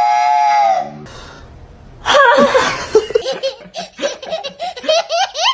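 A woman's voice holds one long, steady high note for about the first second. From about two seconds in, a small child laughs loudly in quick, repeated belly-laugh bursts.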